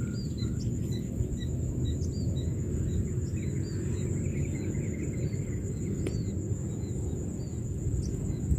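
Open-air ambience: a steady low rumble, with small birds chirping over and over and a steady high insect whine.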